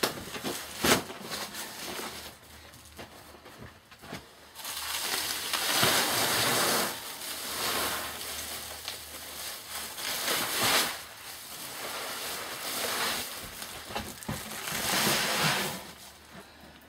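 Sacks being lifted and shifted on a platform: rustling and scraping of the sack cloth, with a sharp knock about a second in and longer stretches of rustling near the middle and again near the end.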